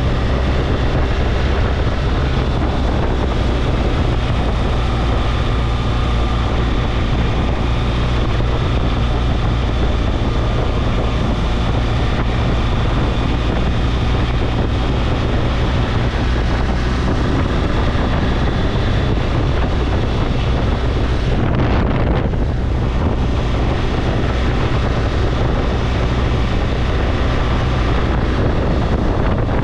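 BMW R1200GS boxer-twin engine running steadily while the motorcycle is ridden along the road, under heavy wind noise on the microphone. The wind noise drops briefly about two-thirds of the way through.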